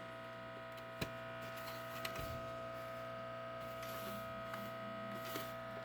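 Steady electrical hum with several fixed tones. A single sharp click comes about a second in, and a few faint small knocks follow later.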